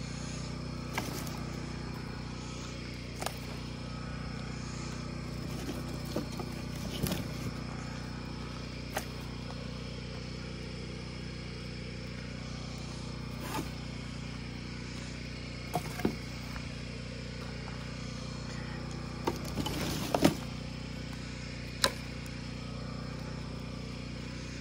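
Portable generator running with a steady low hum. Over it come scattered sharp cracks and knocks of dry sticks being snapped and dropped onto a fire pit, the loudest a cluster about twenty seconds in.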